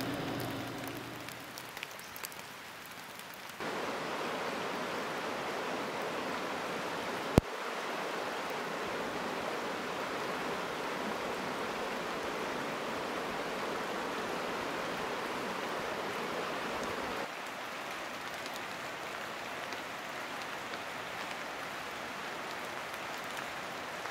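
Steady rushing water of the North Fork Skokomish River, an even hiss that steps up in level about three and a half seconds in and drops slightly about seventeen seconds in. A single sharp click about seven seconds in, and a few faint ticks in the quieter opening seconds.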